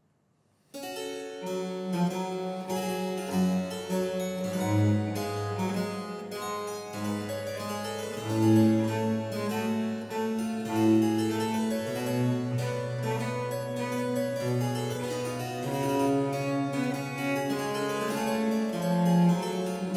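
Two violins, cello and harpsichord playing a slow Adagio movement of baroque chamber music, starting under a second in after near silence, with long held string notes over the harpsichord.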